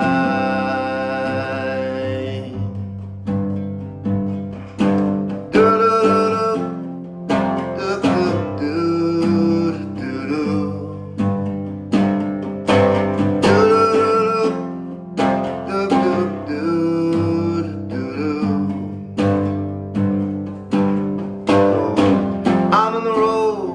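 Acoustic guitar playing an instrumental break between sung verses, with a string of picked notes and chords. The last sung note dies away in the first couple of seconds.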